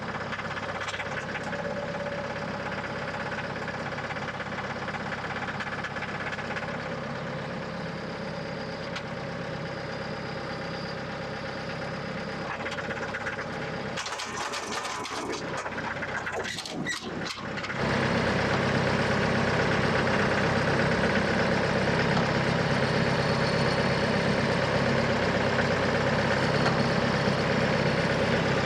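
Diesel tractor engine running steadily under load while pulling a heavy log, with a few clunks about fourteen to seventeen seconds in; it then runs noticeably louder from about eighteen seconds in.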